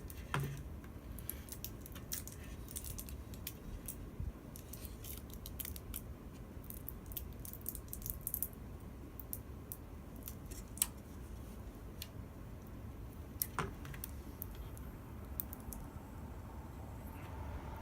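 Scattered light clicks and ticks of a small screwdriver and small computer parts being handled, over a steady low hum, with a couple of sharper clicks partway through.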